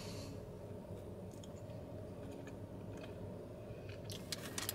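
A bite into a glazed donut followed by quiet chewing, with a few faint clicks and a short cluster of sharper clicks near the end, over a low steady hum in the car's cabin.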